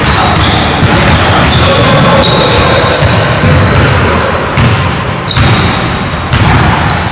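Sounds of a pickup basketball game on a hardwood gym floor: the ball bouncing, sneakers making short high squeaks, and players' voices, all ringing in a large gymnasium.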